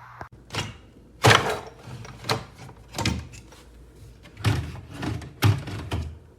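A series of about eight thuds and knocks, hard objects bumping or being shut, the loudest about a second in.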